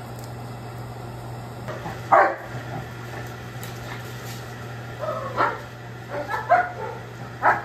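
Dog barking at the pool's edge: one loud bark about two seconds in, then several more barks in the second half.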